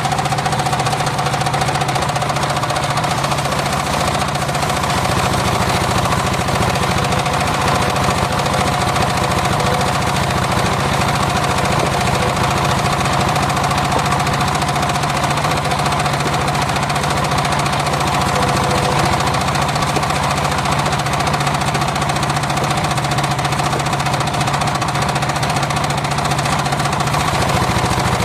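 Homemade engine-driven circular sawmill running steadily, an even engine drone with a steady whine held above it.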